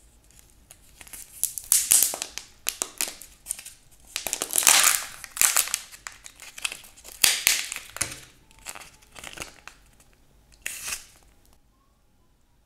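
Crinkling and tearing of a Kinder Joy egg's plastic wrapper as it is torn open and peeled off the egg halves, in irregular bursts of crackling that stop about a second before the end.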